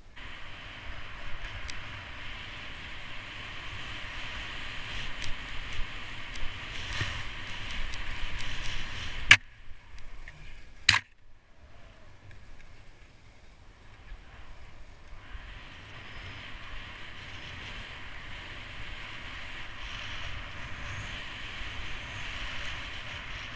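Touring skis hissing as they slide over snow, with a low rumble of wind on the microphone. Two sharp clicks come about nine and eleven seconds in. After them the sound drops quieter for a few seconds, then builds steadily again.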